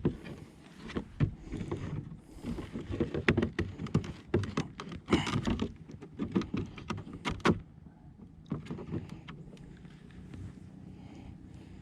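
Knocks, thumps and rattles of handling on a kayak, many sharp strikes close together for the first seven seconds or so, then a quieter steady background.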